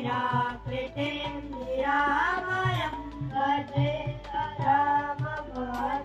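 Children singing together into microphones, a melodic song in phrases, with tabla strokes beneath.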